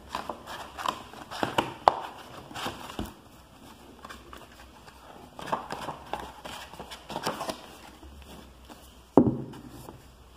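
Books being handled: paper and cover rustling with scattered soft taps and knocks, and one heavier thump about nine seconds in.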